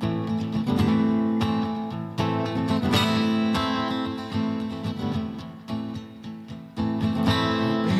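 Acoustic guitar strummed chords in an instrumental break between sung lines, the strums ringing out and dying away between strokes.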